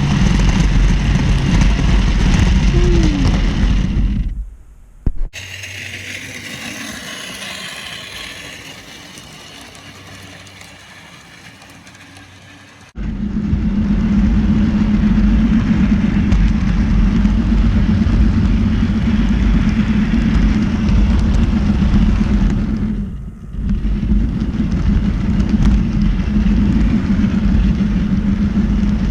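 HO scale model diesel locomotive running, a steady mechanical hum with a strong low tone. About four seconds in it cuts off, a quieter, thinner sound follows, and at about thirteen seconds the full running hum comes back suddenly, dipping briefly near the end.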